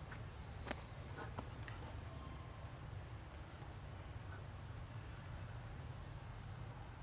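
Outdoor ambience: a steady high-pitched insect trill over a low rumble, with a couple of faint clicks about a second in.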